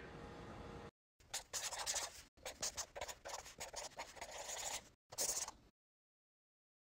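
Pen scratching across a surface as words are handwritten, in a run of short strokes that begins about a second in and stops a few seconds later.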